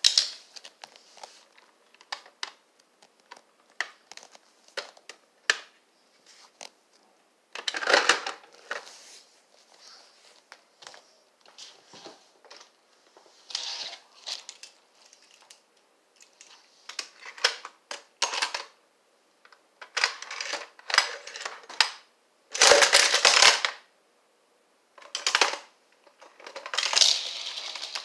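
Hot Wheels plastic playset being worked by hand: scattered clicks and knocks of its plastic parts and a toy car, with several louder rattling clatters, the longest lasting about a second and a half some twenty-three seconds in.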